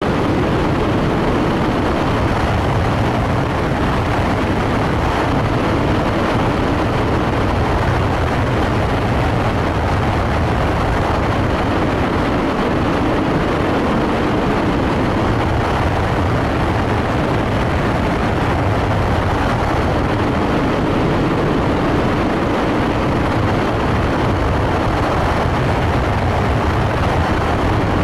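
Steady rush of airflow and cabin noise inside an aircraft in flight, even and unbroken throughout.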